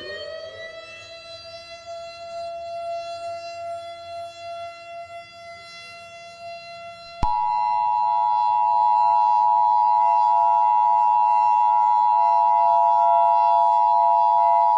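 Civil defense siren finishing its wind-up and holding a steady wail. About seven seconds in, the Emergency Broadcast System's two-tone attention signal cuts in, loud and steady, over the siren.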